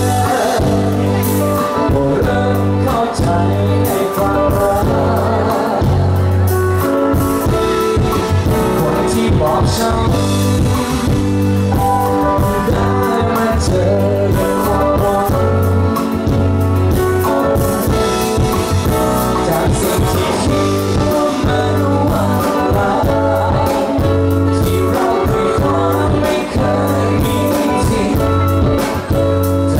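A live rock band with a lead singer plays a song over a loud sound system, with guitar, a steady bass line and drums.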